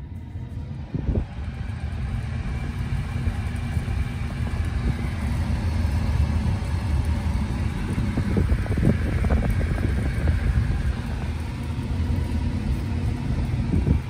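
Tesla Model 3 cabin blower fan running at its maximum setting, air rushing steadily out of the dashboard vents. It builds over the first couple of seconds as the fan comes up to speed, then holds, with the airflow unrestricted by the newly fitted HEPA cabin filters.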